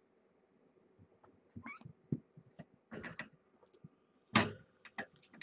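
Kittens playing rough on a carpeted sisal cat tree: a run of soft thumps, scuffles and scrabbling claws as they jump and land, the loudest thump about four seconds in, with a brief rising mew a little under two seconds in.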